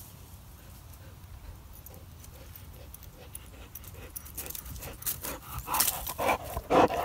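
A dog running across a lawn scattered with dry leaves toward the microphone, its footfalls coming in a quick rhythm and growing louder, then panting and rustling close up in the last couple of seconds.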